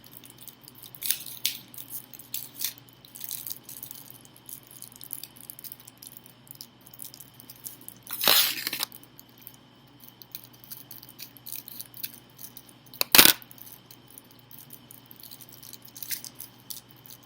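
Handling noises from a decorative switch plate cover being shown: scattered small clicks and taps, a short scraping rustle about 8 seconds in, and a single sharp click about 13 seconds in, the loudest sound.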